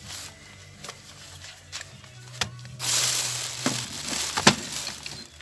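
Cordless drill running with an engine valve spinning in its chuck: a steady hum with a rush of hiss for about a second past the middle. Handling clicks throughout, and a sharp knock near the end.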